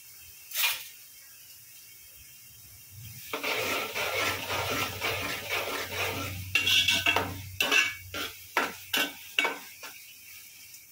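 Raw chicken pieces being mixed by hand with spices in a plastic bowl to marinate. There is one sharp click about a second in. From about three seconds in comes a dense rustling of the meat being turned, which gives way to a run of sharp knocks, two or three a second, near the end.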